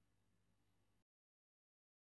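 Near silence: a very faint room tone that cuts off to complete silence about halfway through.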